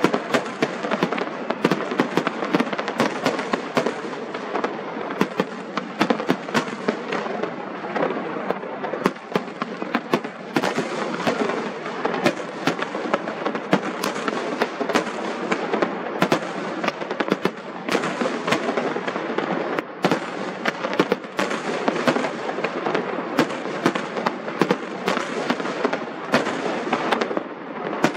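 Aerial fireworks display: a continuous barrage of shell bursts and crackle, many sharp bangs close together with no pause.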